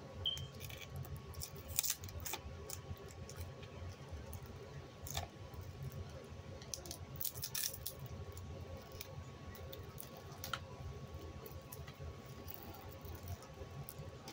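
Plastic shrink wrap on a DVD case being cut open with a blade and handled: scattered, irregular clicks and crackles of plastic, over a faint steady hum.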